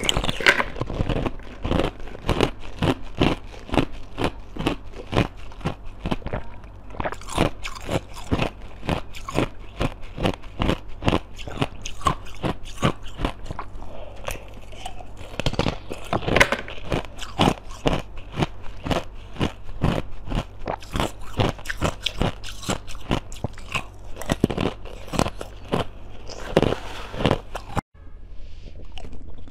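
Close-miked eating sounds: crisp bites and crunching chews into glossy green dome-shaped sweets, about two crunches a second, over a steady low hum. The sound cuts out briefly near the end.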